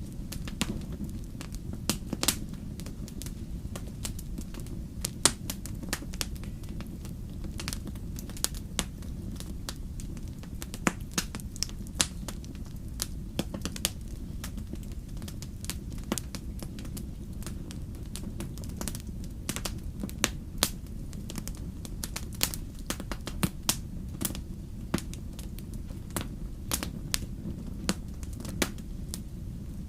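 Fire crackling in a fireplace: irregular sharp pops and snaps, several a second at times, over a steady low rumble of the flames.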